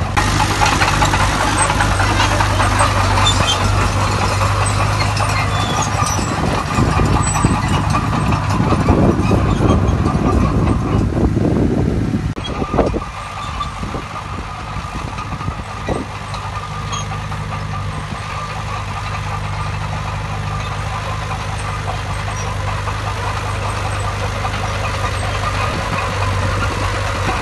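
Heavy earthmoving machine's engine running steadily, louder and rougher under work for the first half, then dropping to a quieter, even run about halfway through, with a couple of single knocks just after the drop.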